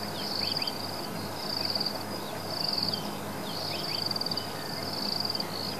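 Insects trilling high and steadily in short pulsing phrases that repeat about once a second, with a few faint short chirps and a low steady hum underneath.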